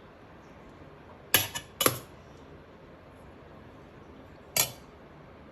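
A serving spoon clinking against dishes as rice is served: two sharp clinks close together about a second and a half in, and a third near the end.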